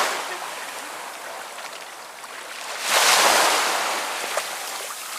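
Sea water washing and splashing against a kayak, in two surges: one fading at the start, and a sharper one about three seconds in that dies away.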